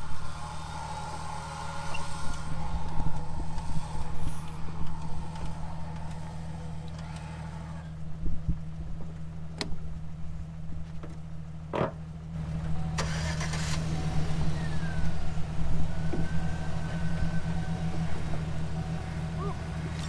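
Vehicle engine idling steadily, growing louder about twelve seconds in, with two sharp knocks a couple of seconds before that.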